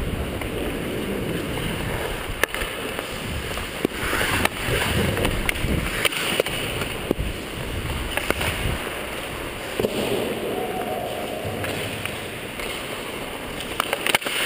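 Ice hockey play heard on the ice: skate blades scraping the ice, with several sharp clacks of sticks and puck scattered through.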